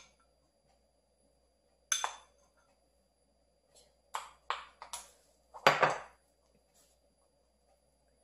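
Wooden spoon knocking and scraping inside a ceramic cup as wasabi ponzu sauce is scraped out. There is a single clink about two seconds in, a quick run of taps at about four to five seconds, and a louder, longer scrape near six seconds.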